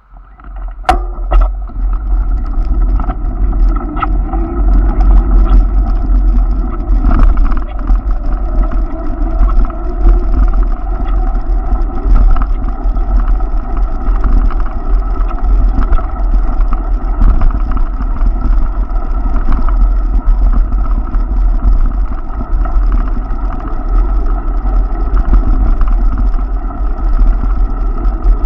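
Steady wind rumble on the microphone and rolling noise from riding along a bike lane, with a constant hum over it and a few sharp clicks near the start. It comes in suddenly from near silence.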